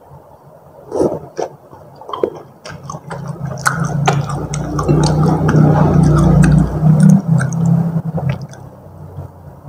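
Close-miked wet eating sounds from saucy Indomie goreng rendang noodles: squishy chewing with small clicks at first, then a long, loud, continuous slurping stretch from about three seconds in that fades near the end.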